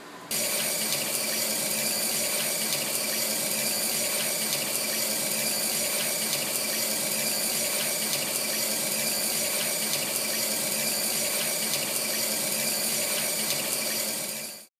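Emergency eyewash station running, its water jets giving a steady, even rush of spraying water. It starts suddenly just after the beginning and cuts off suddenly near the end.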